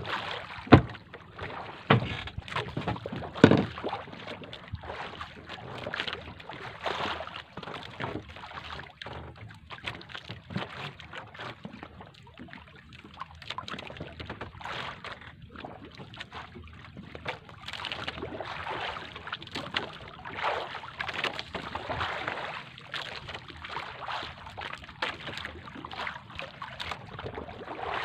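Sea water splashing and sloshing against the hull of a small wooden outrigger boat, with wind on the microphone and a few sharp knocks in the first few seconds.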